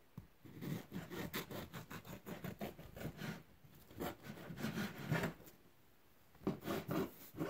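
Knife sawing back and forth through a fresh-baked loaf of bread, a run of rasping strokes through the crust. The strokes stop briefly about five and a half seconds in, then start again for the next slice.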